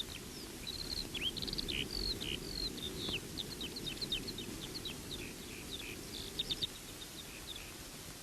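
Small birds chirping and twittering in many quick short calls, over a steady low background hum. The calls stop near the end.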